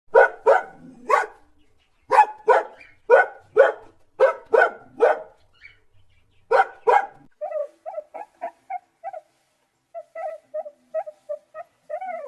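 A dog barking in loud, sharp barks, about a dozen in three runs, then a quieter string of short yips and whines.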